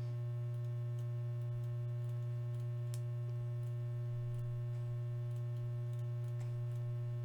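Steady electrical mains hum, with a few faint isolated clicks, one about three seconds in and another near the end.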